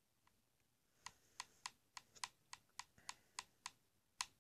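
Faint typing on a computer keyboard: about a dozen sharp key clicks at an uneven pace, starting about a second in.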